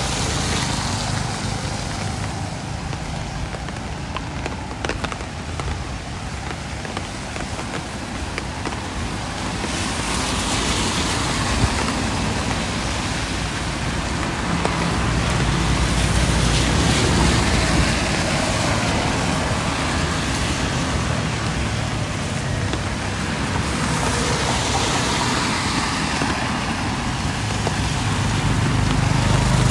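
Street traffic passing on a rain-wet road: vehicles go by one after another, each swelling in a hiss of tyres over a steady low engine rumble.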